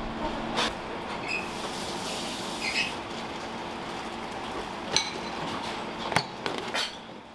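Commercial kitchen prep: utensils and dishes clinking and knocking, with several sharp clinks and a couple of short ringing ones, over a steady background rush of kitchen noise.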